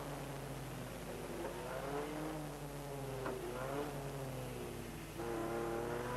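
In-car sound of a Ford Sierra Cosworth race car's turbocharged four-cylinder engine under racing load, its pitch rising and falling through gear changes. About five seconds in it gets louder and settles on a steadier note.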